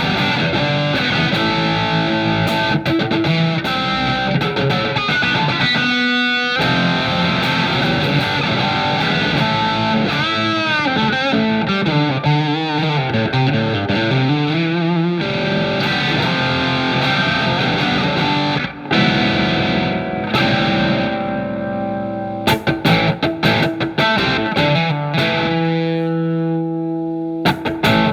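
Electric guitar, a single-coil Telecaster, played through a Marshall MG15FX practice amp. It plays lead lines of sustained notes with string bends and vibrato, brief pauses, and shorter choppy notes near the end.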